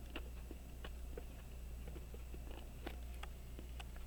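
Faint, irregular small clicks and taps of metal watchmaking tools on tiny pocket-watch parts while a screw is handled, over a steady low hum.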